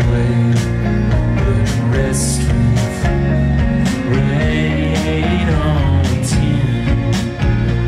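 Indie rock band playing live: electric guitars, bass guitar and keyboard over drums with regular cymbal hits and a strong bass line.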